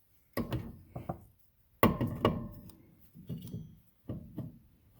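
Irregular metal knocks and clunks as a replacement electric PTO clutch is worked onto the mower engine's keyed shaft and nudged into line with its anti-rotation lug. The loudest knock, about two seconds in, rings briefly.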